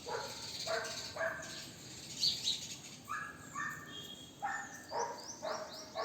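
A dog barking repeatedly, about ten short barks in uneven groups, with a bird chirping quickly near the end.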